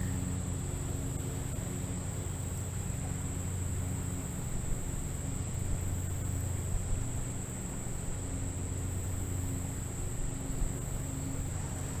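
A steady chorus of insects trilling in one high, unbroken tone, over a low steady hum.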